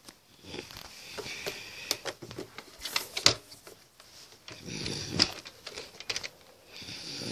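Scattered clicks, taps and rustling from objects being handled close to the microphone, with sharper knocks about three seconds and five seconds in.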